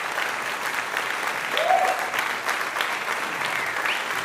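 Applause: a steady patter of many hands clapping. A short rising call cuts through it about one and a half seconds in, and a fainter high one comes near the end.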